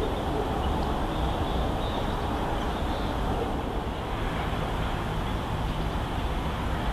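Steady, even rushing noise of outdoor ambience, with no distinct events.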